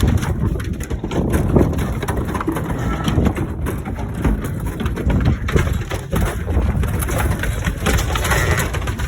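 Freshly shorn ewes coming off the upper deck of a stock truck, many hooves clattering on the deck and loading ramp in a dense, irregular rattle of knocks over a low rumble.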